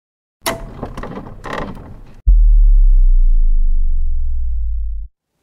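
Intro sound effect: about two seconds of mechanical clicking and ratcheting, then a sudden heavy low boom that holds as a deep hum and cuts off about five seconds in.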